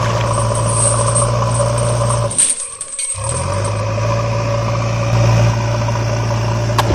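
Heavy vehicle engine running at a steady idle, a truck or tractor engine sound. It drops out for about half a second a little before the middle, then starts again. A sharp click near the end.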